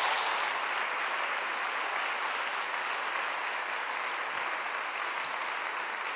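Audience applauding steadily at the end of a speech.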